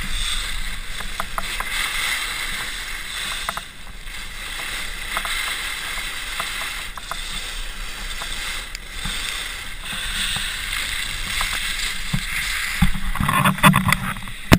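Skis sliding and scraping on snow, a steady hiss that swells and fades with each turn, mixed with wind on the microphone. Near the end come loud knocks and rustling as the camera is jostled.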